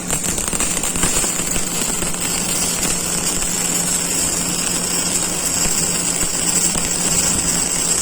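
MIG welding arc crackling and sizzling steadily as wire is fed into the weld, starting abruptly and running on, over a low steady hum.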